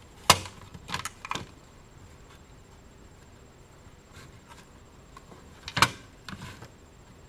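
Handling noise from working on the CB radio's speaker wiring: a sharp click just after the start, a quick run of small clicks and knocks about a second in, and another loud click near six seconds, followed by a few lighter ones.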